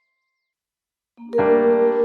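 Silence for about the first second, then background keyboard music starts suddenly with sustained, re-struck chords.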